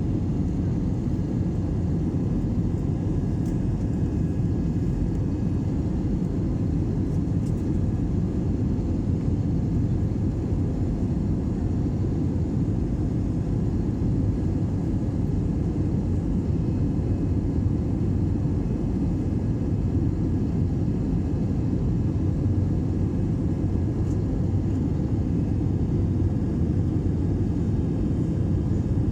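Aeroplane engines and airflow during a takeoff, a steady low rumble that does not rise or fade.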